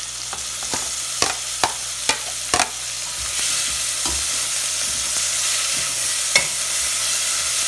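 Chopped onions sizzling in hot oil with toasted garlic in a stainless steel pot, the sizzle growing louder about three seconds in. A metal spoon clicks against the plate and pot several times in the first few seconds as the onions are scraped in and stirred, with one more click near the end.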